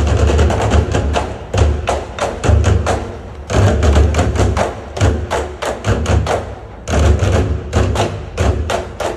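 Loud drum-heavy music with many rapid percussive hits over a deep, recurring bass beat.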